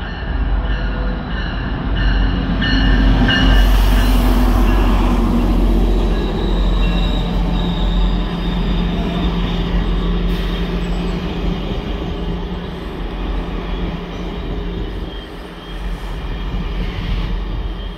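GO Transit bilevel commuter train rolling past with a heavy low rumble and a steady high wheel squeal, loudest a few seconds in and easing off towards the end.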